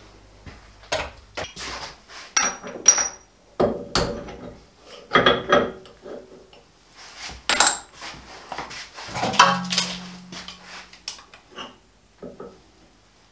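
Steel tooling clanking and clinking against a lathe's tool post and carriage as it is handled and set up: a run of irregular knocks, some with a short metallic ring.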